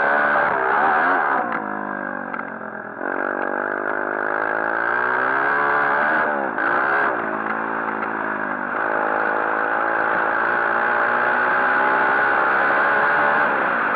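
A 140cc pit bike's single-cylinder four-stroke engine running under load on a motocross track. The revs rise and fall again and again as the throttle is worked, dropping briefly three times in the first half before holding high and steady from about two-thirds through.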